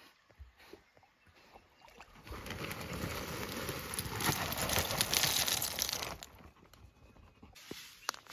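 Lump charcoal poured into a shallow pit dug in the soil: a dense clatter of pieces landing on one another, starting about two seconds in and lasting about four seconds.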